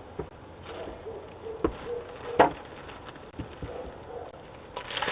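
Steady hiss of a doorbell camera's microphone picking up the porch, with a faint wavering hum and a few short knocks, the loudest about two and a half seconds in.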